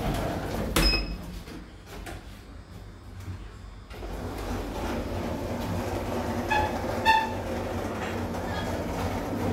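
Passenger lift cabin: a short electronic ding about a second in, then the steel doors sliding open and the surrounding noise swelling in, followed by two short electronic beeps in quick succession.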